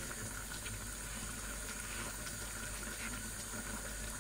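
Mushroom curry simmering in a stainless steel pot on a gas burner: a steady, quiet bubbling hiss.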